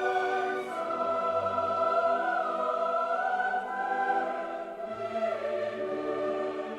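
Classical choral music with orchestra: a choir singing long held notes that shift in pitch, about a second in and again near the end.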